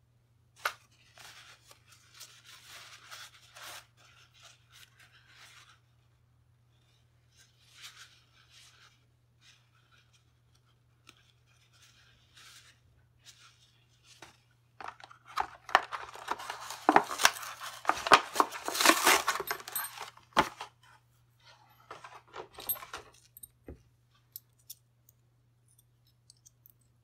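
Small metal rifle parts being handled and scraped by hand: scratchy rasping and light metallic clicks in short patches, loudest for several seconds about two-thirds of the way through, over a faint steady low hum.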